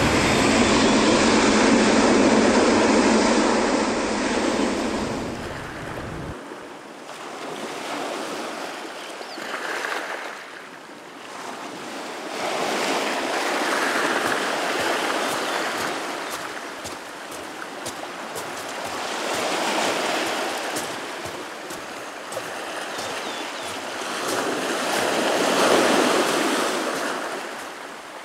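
Ocean surf breaking on lava rocks and a black-sand beach. The wash of the waves is loudest in the first few seconds, then rises and falls in surges several seconds apart.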